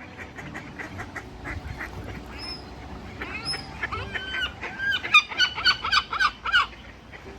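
Gulls calling: softer bird chatter, then about halfway through a rapid run of loud, harsh calls, several a second.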